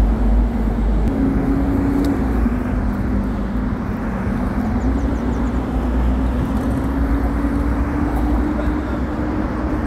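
Steady motor-vehicle noise: a continuous low rumble with an engine hum that drifts gently up and down in pitch.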